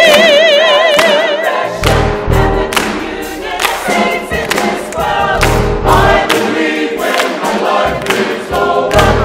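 Church choir singing a gospel-style mass, accompanied by piano, bass and drums. A held note with wide vibrato dies away about a second and a half in, then choir and band carry on in repeated accented chords over a walking bass.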